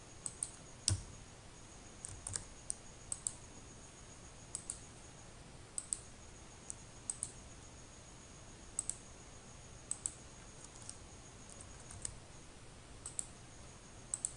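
Computer mouse buttons clicking at irregular intervals, single clicks and quick double clicks, over a faint steady electrical hum and thin high whine.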